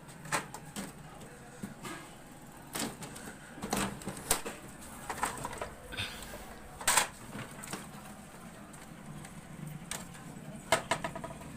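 Irregular clicks, taps and scrapes of a metal screwdriver working inside an HP LaserJet 1005 printer, prying at a coin jammed in its gears, with sharper knocks about seven seconds in and near the end.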